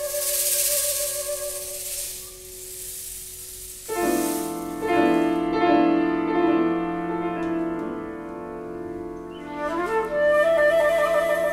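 Live contemporary chamber music for flute, piano and percussion. A shaker rattles over a held flute note at the start. Piano chords come in sharply about four seconds in, and the flute rejoins with a higher melody near the end.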